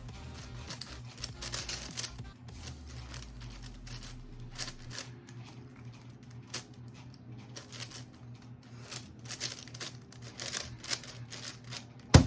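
A 5x5 speed cube being turned quickly by hand: irregular runs of plastic clicking and clacking as the layers turn, with one sharp knock near the end.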